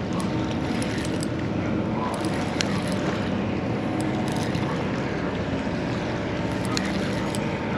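Steady low drone of a boat engine running, with a few faint clicks over it.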